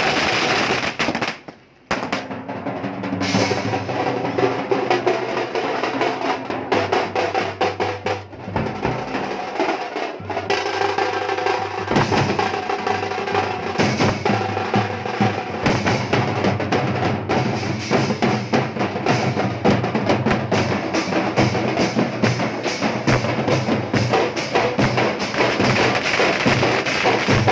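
Teenmaar street drum band playing a fast, loud beat on big bass drums and snare drums, struck with sticks. The drumming breaks off for a moment about a second and a half in, then carries on.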